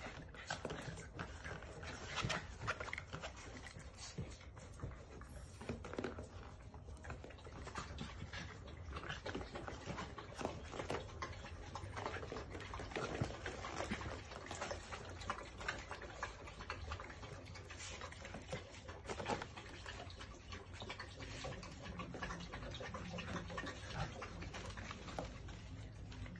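Several small dogs scuffling and playing on a tiled floor, their claws clicking and tapping on the tile throughout, with scattered small dog sounds.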